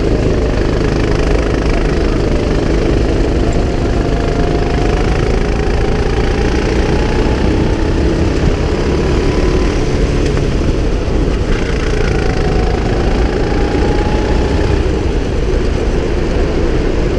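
Go-kart engine running hard, heard from the driver's seat. Its pitch climbs slowly for several seconds, drops about eleven seconds in, then climbs again.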